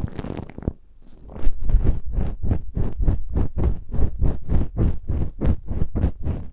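An ear pick scratching in an ear in close-miked ASMR ear cleaning: a run of short, even strokes, about four to five a second, after a brief pause about a second in.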